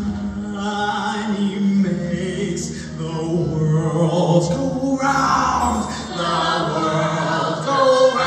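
Large show choir of male and female voices singing sustained chords in harmony.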